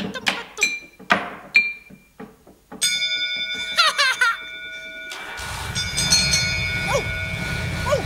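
Wooden sticks knocking against objects, several sharp clacks each with a short ringing tone. About three seconds in, a steady held tone of several notes takes over, and about halfway through a low rumbling noise joins it.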